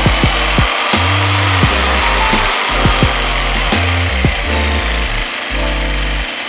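Background music with a steady beat and a stepping bass line, over the continuous running of a DeWalt DW349 500 W jigsaw.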